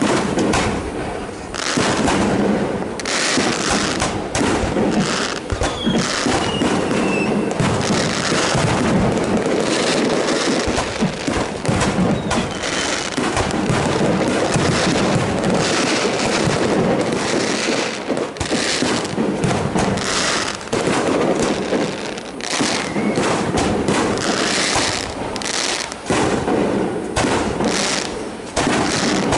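Fireworks display at full barrage: aerial shells launching and bursting one after another with hardly a pause, the reports overlapping into a continuous loud rumble of bangs.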